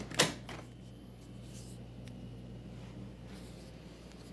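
A sharp knock or click just after the start, then a low steady hum.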